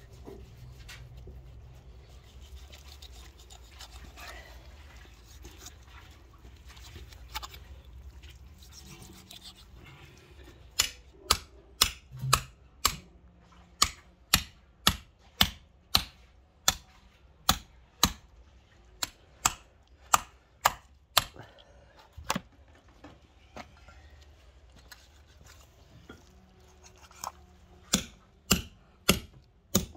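A hammer striking the back of a steel knife blade, driving it through a pig's head on a wooden chopping block to split it. There are sharp, loud strikes about one to two a second, beginning about a third of the way in and breaking off briefly near the end. Before them there is only faint low rumbling.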